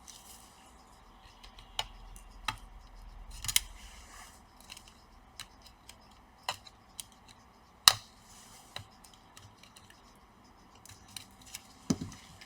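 Scattered light clicks and scratches of fan cable connectors being worked loose from a laptop motherboard, a dozen or so small ticks with the sharpest one about eight seconds in.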